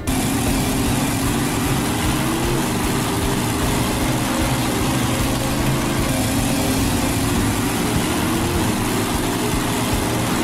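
Steady machine motor sound with a heavy hiss and a low hum, the sound effect given to a drill truck. It starts and cuts off abruptly.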